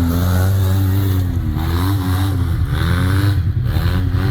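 Side-by-side UTV engine running under load, revving up and down repeatedly over a steady low drone.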